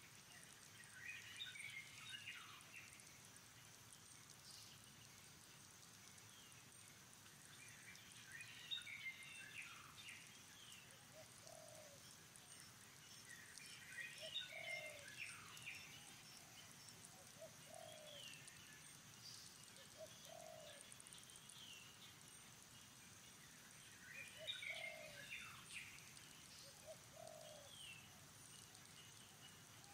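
Faint birdsong: one bird repeats a short phrase of quick chirps about every six seconds, and short low calls sound in between.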